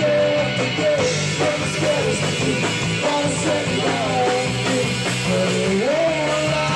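Live rock band playing loudly, with drums and electric guitar, while a man sings into a microphone.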